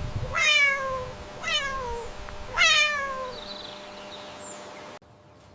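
Domestic cat meowing three times, about a second apart, each meow falling in pitch.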